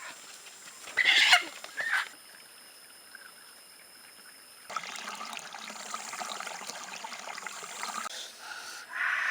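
A chicken squawks briefly about a second in, then from about halfway through water trickles and splashes steadily.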